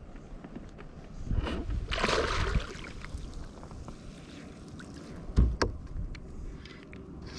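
Water splashing and sloshing at the side of a kayak while a hooked flounder is played close to the boat, with a sharp knock against the kayak about five and a half seconds in.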